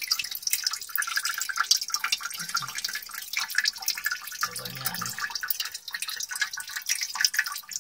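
Water trickling and splashing steadily in a small glass aquarium, a dense patter of fine drips and bubbles.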